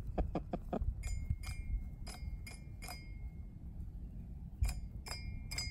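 A hen pecking the metal bars of a toy xylophone, striking about eight bright ringing notes in an irregular run, each note hanging on briefly. They come in a cluster over the first few seconds and then again near the end. Four quick, duller knocks come first.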